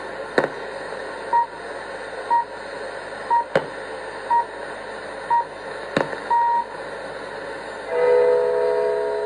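Longwave broadcast of Polskie Radio heard through a portable radio's speaker under steady hiss and occasional static crackles. It plays the hourly time signal, five short beeps a second apart and a longer sixth, and the station's chimes begin near the end.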